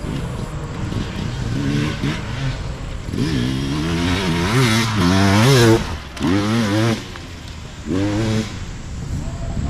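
Hard enduro dirt bike engine revving in repeated throttle bursts, its pitch swinging up and down. The loudest, longest burst comes about halfway through, followed by two shorter blips that cut off sharply.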